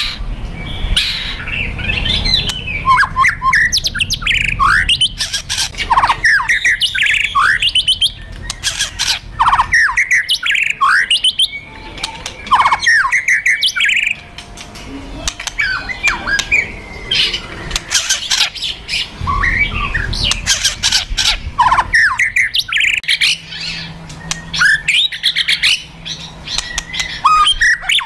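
White-rumped shama (murai batu) in an aggressive fighting song: quick bursts of sweeping whistled notes mixed with fast, dry rattling clicks (kretekan) and sharp shot-like notes (tembakan).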